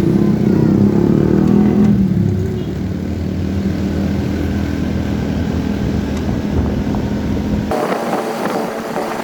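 Motorcycle engine running on the move, louder in the first two seconds and then steadier. The engine sound cuts off abruptly near the end.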